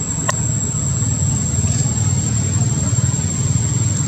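Steady low rumble of an engine running, with one short sharp click just after the start.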